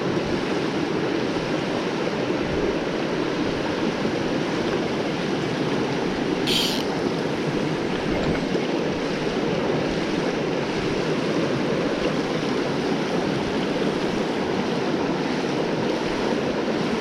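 Mountain stream water rushing steadily, with one brief high click about six and a half seconds in.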